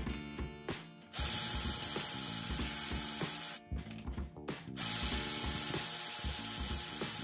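Ratchet wrench clicking rapidly as it runs bolts down on an aluminium differential housing, in two spells of about two and a half seconds each.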